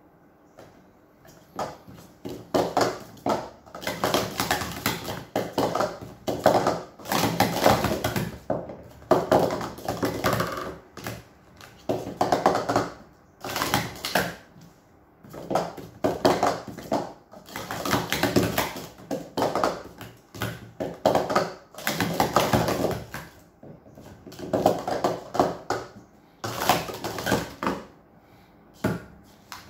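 Hard plastic sport-stacking cups being rapidly stacked up and down on a mat, a quick clatter of cups clicking into each other and tapping the table. It comes in repeated bursts of a second or two with short pauses between.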